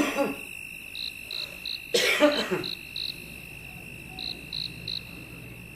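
Crickets chirping in short runs, about three chirps a second, over a steady high insect trill. A person coughs twice: briefly at the start and more loudly about two seconds in.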